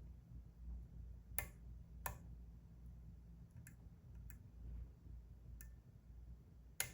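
Faint, irregular small clicks of a lock pick and tension wrench working a Kwikset SmartKey Gen 2 lock cylinder, about six clicks spaced a second or so apart.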